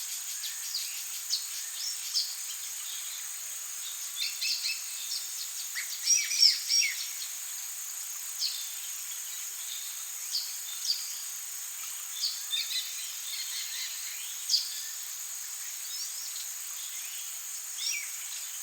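Amazon rainforest ambience: a steady high drone of insects, with short bird chirps and calls scattered through it, loudest in a cluster about six seconds in.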